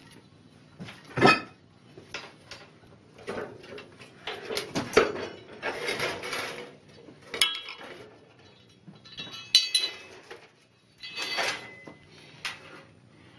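Steel hand tools, an adjustable wrench among them, clinking, knocking and scraping against a steel fuel tank while a thread tap is worked into the fuel-line hole. The sounds come irregularly, with a sharp knock about a second in and a few short ringing metallic clinks later on.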